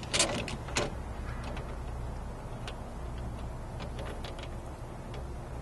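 Metal clicks and light ticks of a bicycle fork being secured on a Thule fork block's quick-release skewer. Two sharp clicks come in the first second, then scattered faint ticks follow over a steady low hum.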